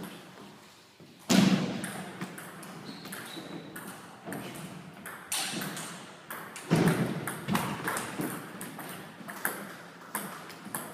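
Table tennis ball clicking against paddles and the table in quick, irregular strokes during rallies, with two louder thuds, one about a second in and one past the middle.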